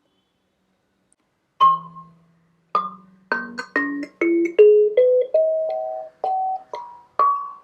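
Kalimba (thumb piano) metal tines plucked one at a time, each note ringing and dying away. After a brief silence, a single note sounds, then a run of about a dozen notes climbing step by step in pitch.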